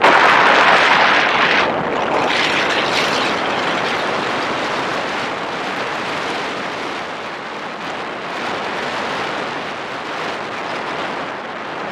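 Steady rush of wind over the microphone of a BMW R 1200 GS Rallye motorcycle riding at highway speed. The rush is louder for the first second or two while the bike passes a truck, then settles to an even roar.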